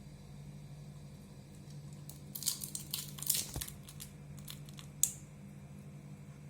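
Crinkling and crackling for about two seconds, then one sharp click, over a steady low hum.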